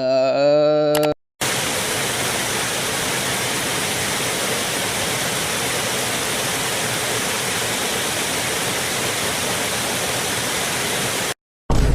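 Static noise sound effect: a steady, even hiss like television static that cuts in abruptly about a second in, holds at one level for about ten seconds and cuts off just before the end.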